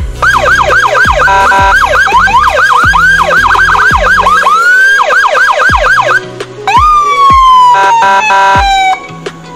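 Whelen electronic siren, an HHS3200 controller driving an SA315P speaker, sounding rapid rising-and-falling sweeps, about four a second. About seven seconds in it switches to a slower falling tone and short steady blasts. Background music with a steady beat runs underneath.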